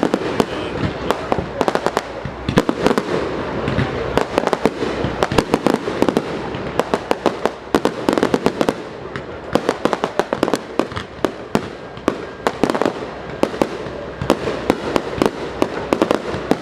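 Fireworks and firecrackers going off all around: a dense, irregular run of sharp bangs and pops, one on top of another, over a steady crackling din.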